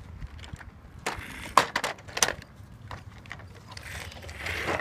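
A few sharp plastic clicks and knocks from a toy monster truck being handled close by, followed near the end by a short rustling hiss.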